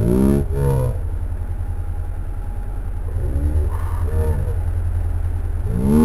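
ATV engine revved in short throttle blips as it pushes through creek water: a pair right at the start, another pair about three seconds in, and one more at the end, over a steady low rumble.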